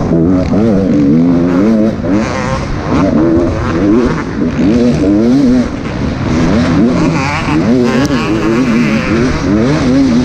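Engine of an off-road race vehicle heard from on board at racing speed. Its revs rise and fall rapidly and continually.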